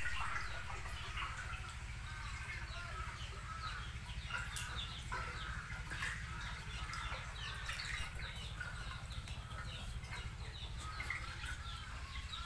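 Many birds chirping and twittering in quick, overlapping calls, over a steady low hum.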